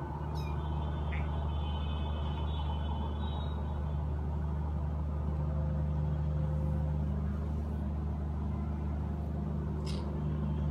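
A steady low mechanical hum, with a few faint, brief high sounds about half a second in and again near the end.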